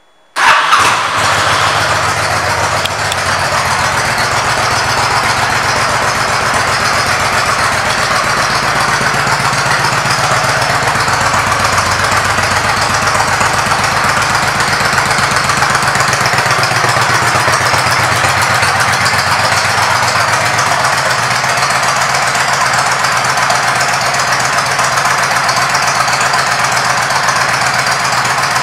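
2007 Honda VTX1300R's V-twin engine, fitted with aftermarket pipes, starts up less than a second in and then idles steadily.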